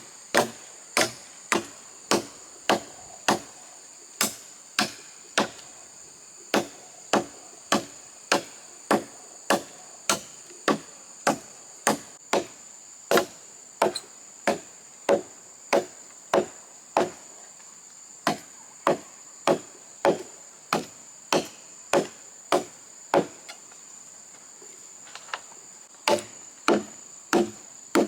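A blade chopping into a tree trunk by hand, a sharp wooden strike about twice a second, pausing briefly near the end before resuming. Under it runs a steady high-pitched insect drone.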